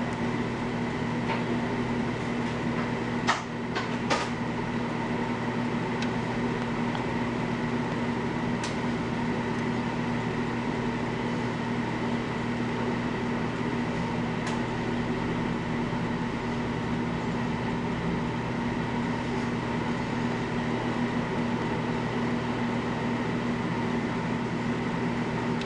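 Steady mechanical hum with a few fixed tones, like running lab equipment or room ventilation, with two light clicks about three and four seconds in.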